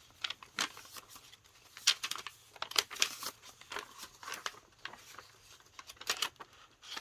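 Paper pages, cardstock and journal cards of a handmade junk journal rustling and crinkling as they are handled and flipped open, in short irregular bursts with a few sharper crackles about two and three seconds in.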